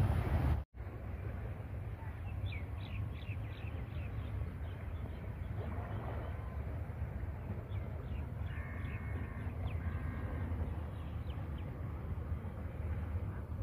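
Birds calling in short, repeated chirps, a cluster about two and a half seconds in and more from about seven to eleven seconds, over a steady low outdoor rumble.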